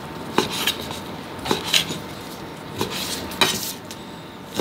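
Kitchen knife cutting raw chicken breast into small dice on a cutting board, the blade knocking hard on the board about six times at uneven intervals.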